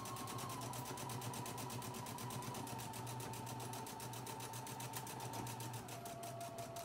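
Domestic electric sewing machine top-stitching layered fabric at a steady speed: rapid, even ticking of the needle over a motor whine that steps down in pitch about six seconds in.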